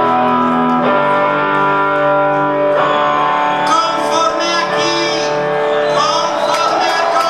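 Live band music: guitars hold slow, sustained chords, and a man's voice comes in singing about halfway through.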